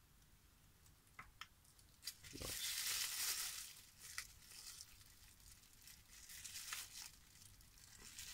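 Plastic bubble-wrap packaging being torn open and unwrapped by hand: a louder ripping, crinkling stretch about two to four seconds in, then softer, intermittent crinkling.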